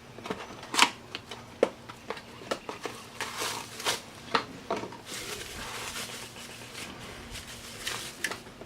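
Scattered small plastic clicks and rustling from handling a replacement window switch unit for an Audi A4.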